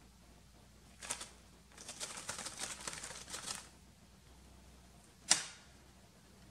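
Small plastic zip bag of dried chili peppers crinkling and rustling as it is handled: a short crackle, then a longer stretch of dense crackling. About five seconds in comes one sharp click, the loudest sound.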